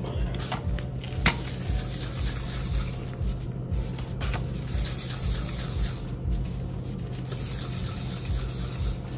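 Plastic-gloved hands rolling cake-pop dough into balls: a rubbing hiss that swells and fades about three times, with a few light knocks, over a steady low hum.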